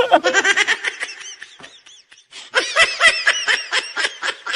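Laughter: two runs of quick, high-pitched laughing pulses, broken by a short pause about two seconds in.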